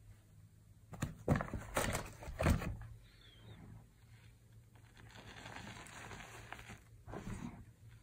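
Hands squeezing and crushing a heap of crumbled gym chalk: a quick run of crisp crunches about a second in, then softer powdery rustling, with one more crunch near the end.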